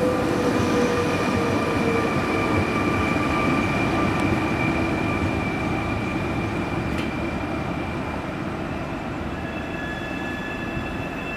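Fertagus 3500-series double-deck electric multiple unit pulling away and receding, wheels rumbling on the rails under a steady electric whine. The sound fades gradually as the train draws off.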